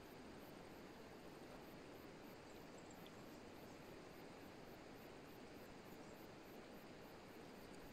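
Near silence: a faint, steady, even hiss with nothing standing out.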